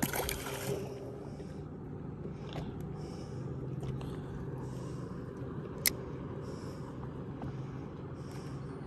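Steady low hum of a bass boat's electric trolling motor, with soft, repeated splashing of small waves against the hull. It opens with a brief rush of noise, and there is a single sharp click about six seconds in.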